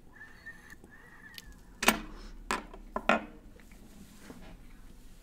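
A cannabis pipe bowl being lit and drawn on, with a faint steady hiss for the first second and a half. Then four sharp clicks and knocks between about two and three seconds in, loudest at about two seconds and just after three, as the pipe and lighter are handled.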